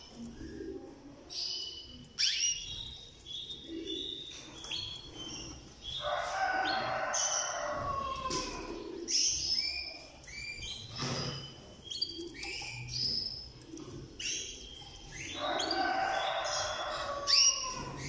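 Caged canaries chirping and calling in many short, sharp chirps and quick downward-sliding notes. A longer, lower-pitched call comes about six seconds in and again about fifteen seconds in.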